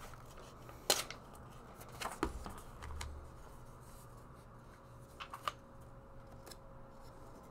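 Loose sheets of refill paper being picked up and shuffled by hand, a soft rustling broken by a few light ticks and taps, the sharpest about a second in.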